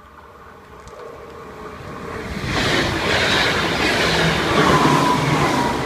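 NS ICMm (Koploper) electric intercity train passing through a level crossing. Its rumble and wheel-on-rail noise swell over the first couple of seconds and stay loud, with a falling whine near the end.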